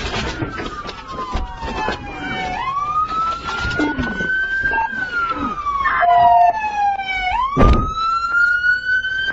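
Police car siren wailing, its pitch sweeping quickly up and then gliding slowly down, over and over. A brief steady beep sounds about two-thirds of the way in, and a loud thump comes soon after.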